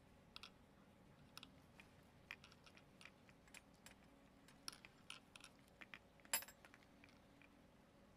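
Faint, scattered metallic clicks and ticks of crimping pliers squeezing a metal crimp sleeve onto heavy monofilament leader, with one sharper click about six seconds in.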